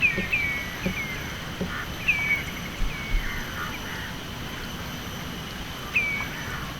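Bird calling: short, sharp chirps that slide downward in pitch, several in quick succession early on and one more near the end, with a few faint low knocks in between.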